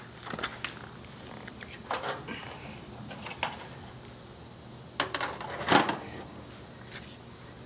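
Disposable aluminium foil roasting pan being lowered upside down as a lid onto a second foil pan: a handful of light crinkling knocks and rattles of thin foil, the loudest just before six seconds in.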